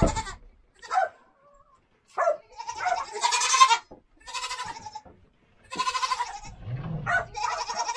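Goats bleating, a string of calls of about half a second to a second each, one after another. A short thump at the very start.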